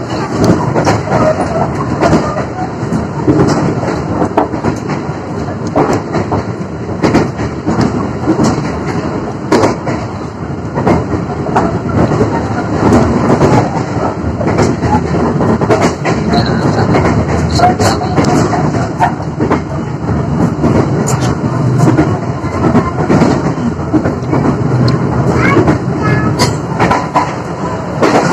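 Passenger train running, heard from inside the carriage: a steady rumble with many irregular knocks and clicks.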